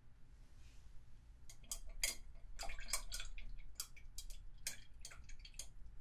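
A paintbrush being rinsed in a water cup: a quick, irregular run of clinks and small splashes as the brush is swished and knocked against the cup, starting about a second and a half in and stopping just before the end.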